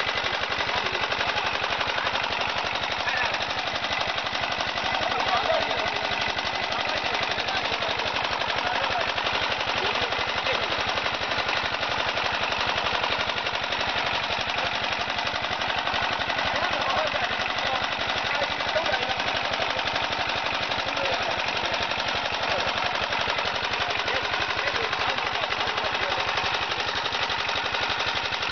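Motor-driven charcoal briquette extruder running steadily with a fast, even rattle as it pushes charcoal paste out into sticks.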